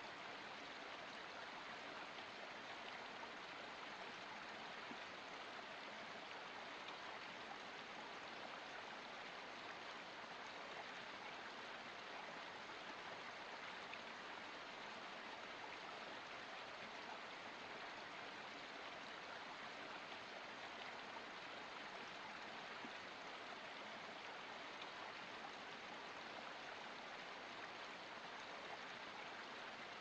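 Small forest creek running over mossy rocks: a steady, unbroken trickle and splash of water.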